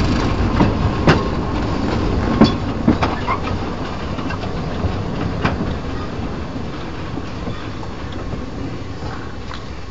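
Narrow-gauge steam train of locomotive 99 516 rolling slowly along the track, with a few sharp wheel clicks over rail joints at uneven intervals in the first half. Its running rumble fades steadily as the train slows on its approach to a halt.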